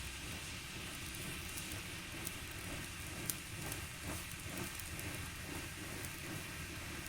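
Fireworks crackling over a steady low rumble and hiss, with many small sharp crackles and one sharper crack about three seconds in.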